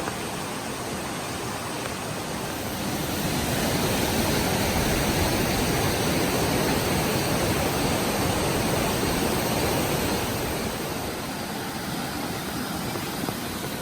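Steady rush of a mountain stream's flowing water, swelling louder from about three seconds in until about ten seconds.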